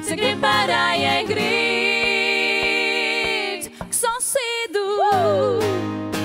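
Women's voices singing a song's closing phrase in harmony: a long held chord with vibrato, a short break, then one voice sliding down in pitch near the end. A steady, low accompaniment rings underneath, most likely the acoustic guitar being played on screen.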